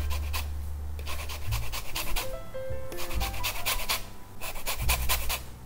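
Lemon rind being grated on a fine rasp zester over a glass bowl: quick scraping strokes in runs of several a second, with short pauses between runs.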